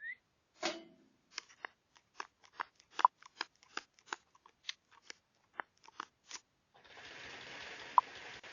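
A run of short, sharp clicks and taps, unevenly spaced at about two to three a second, then about two seconds of steady hiss near the end with one sharp tick in it.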